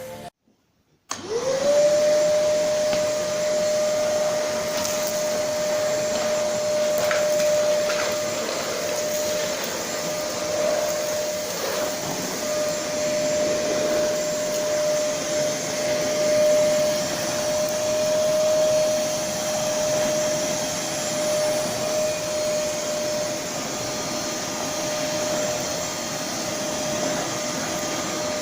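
Black+Decker BXVC30XTDE 1600 W wet/dry vacuum switched on about a second in: its motor spins up quickly to a steady whine and runs on evenly with a hiss of air.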